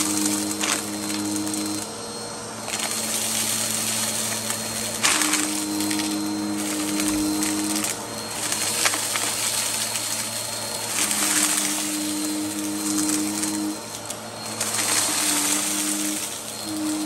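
Upright vacuum cleaner running and sucking up spread-on dirt, with a steady motor hum and crackling as the grit goes up. Its tone changes every few seconds.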